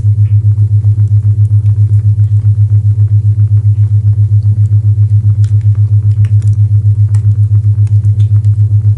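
Isochronic tone: a low, steady-pitched tone pulsing on and off about six times a second, with faint fireplace crackling beneath it.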